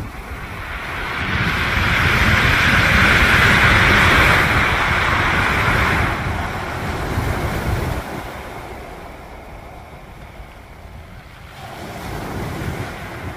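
Ocean surf breaking and washing up a pebble beach: a wave swells and crashes through the first half, then the wash dies down before another builds near the end. Wind buffets the microphone with a low rumble.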